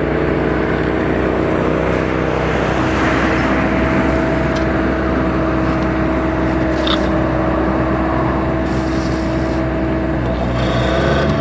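Motorhome's onboard generator running steadily, a constant hum with a fixed tone, with a few brief scrapes or knocks around the middle.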